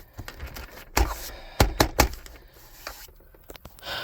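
Sharp clicks and knocks of a hard-plastic truck cup holder console being handled after it has been snapped into place: one about a second in, then three in quick succession.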